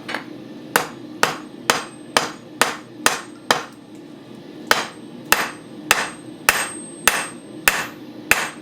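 Blacksmith's hand hammer striking hot steel on an anvil, about two blows a second with a brief pause partway through, peening a rivet head to join a pair of tongs. A steady low hum runs underneath.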